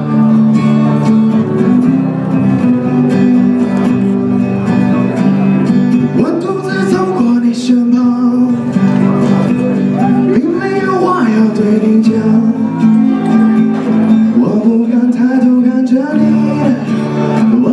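Music: an acoustic guitar playing the intro of a song, with chords ringing steadily.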